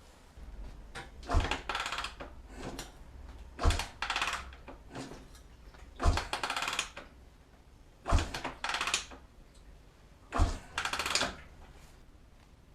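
Honda XL250S being kick-started five times, about every two seconds: each kick lands with a sharp thump followed by under a second of rattling as the engine turns over. The engine does not catch and keep running.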